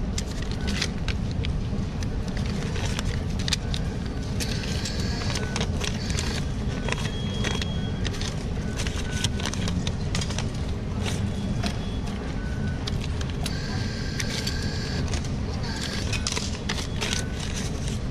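Steady low rumble of traffic and station background noise, with many small clicks and rustles as a paper banknote is handled at a ticket machine, and a few brief steady tones.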